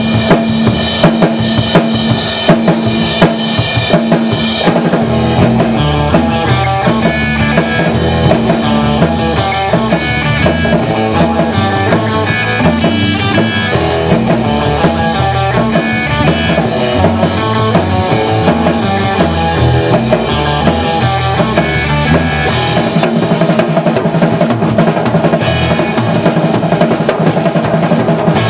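Live band playing a cover instrumental, the drum kit prominent with bass drum and snare hits over bass and other pitched instruments.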